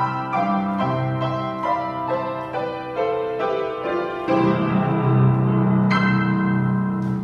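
Piano playing the closing bars of a song: struck notes and chords, with a full chord struck about four seconds in and a final chord near the end, left ringing.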